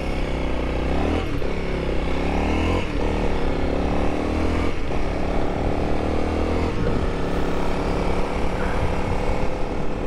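Honda CRF300L's single-cylinder engine accelerating through the gears while riding, its pitch climbing and dropping back at each of about four upshifts, then holding steadier.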